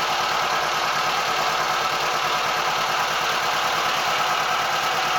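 Boat engine running steadily with a rapid, even throb under a broad steady hiss.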